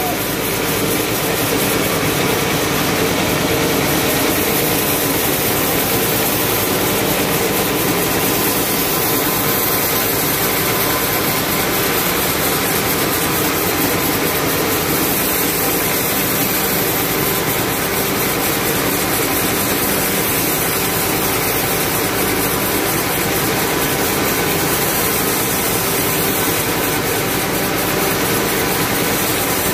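Band sawmill running steadily as its blade cuts a long slab from a cempedak heartwood log: an even, unbroken machine drone.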